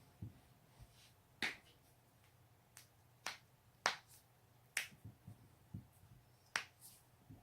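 A person's joints being cracked: a string of sharp, separate pops, roughly one or two a second, with the loudest a little under four seconds in. Softer dull knocks fall between some of them.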